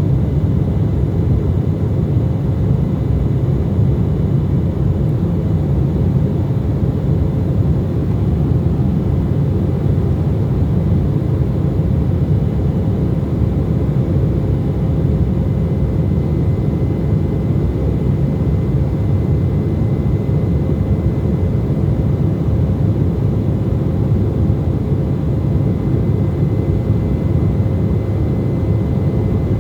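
Steady cabin noise of a jet airliner in flight: a dense low rumble of engines and rushing air, with a faint, even whine above it.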